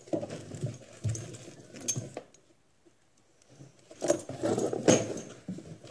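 Metal buckles and rings of a horse halter clinking and jangling as it is handled, with soft rustling. A short quiet pause in the middle, then more clinks about four seconds in.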